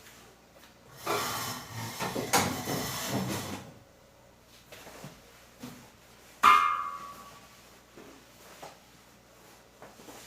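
Kitchen things being handled: a couple of seconds of rattling and sliding, like a drawer or items being shifted, then one sharp clink that rings briefly about six seconds in, and a few light knocks.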